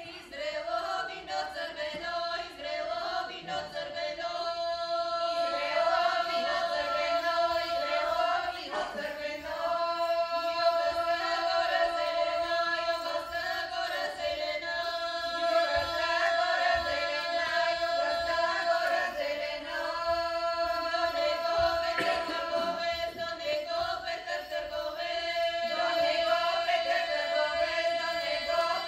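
Bulgarian women's folk choir singing unaccompanied in traditional polyphony: one part holds a steady drone note while another melody line moves above it.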